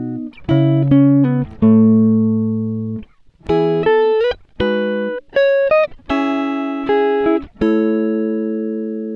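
Intro music: a string of plucked, guitar-like chords, one about every second, each struck and left to ring and fade, with short breaks between them.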